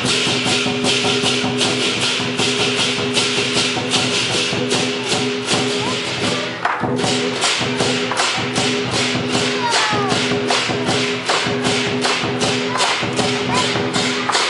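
Chinese lion dance percussion: cymbals clashing in a steady beat of about three to four strokes a second over a drum, with a steady ringing tone underneath. The beat breaks off briefly about six and a half seconds in, then carries on.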